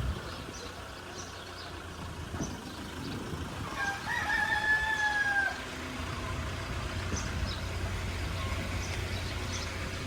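A rooster crowing once, about four seconds in: a single call of about a second and a half that sags slightly in pitch toward its end, over a steady low background hum.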